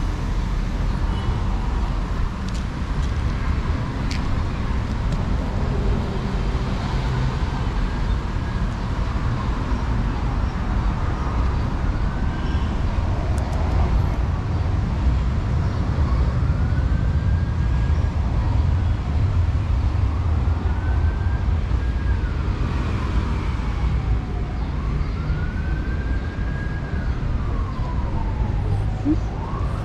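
An emergency vehicle's wailing siren, sweeping slowly up and down every few seconds and growing clearer over the second half, over a steady low rumble of traffic.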